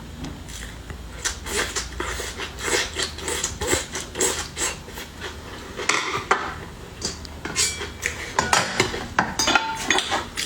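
Dishes and metal utensils clinking and clattering in a quick, irregular run of knocks and clinks, with a few short ringing tones near the end.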